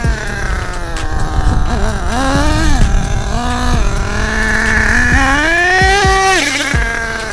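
Small nitro engine of an HPI Savage XL RC monster truck revving up and down under throttle, its pitch climbing, holding and falling away several times, with a long climb to a high, steady rev about five seconds in.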